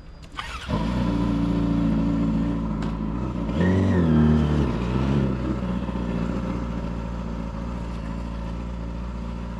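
Yamaha YZF-R6 inline-four engine catching and starting with a sudden onset, then idling. It gives one quick rev blip about four seconds in, rising and falling in pitch, and settles back to a steady idle.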